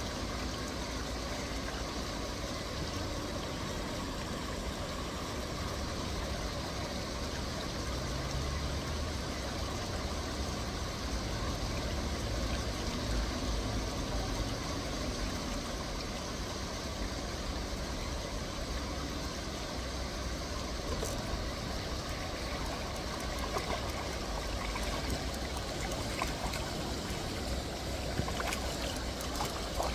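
Steady rush of flowing river water, with a low rumble underneath and a few light ticks near the end.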